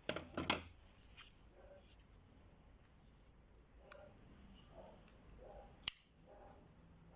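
Handling of a knife's kydex sheath and its adjustable belt attachment: a few sharp plastic clicks and snaps, a cluster at the start and a single sharper one near the end, over faint rustling.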